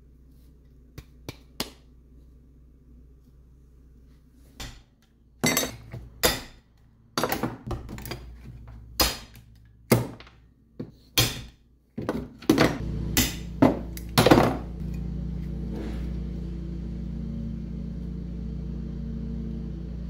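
Hand pop-rivet gun setting rivets through sheet steel and welding-glove leather: a quick run of a dozen or so sharp snaps and metal clanks, starting about four seconds in. From about two-thirds of the way through, a steady low hum sets in and keeps going.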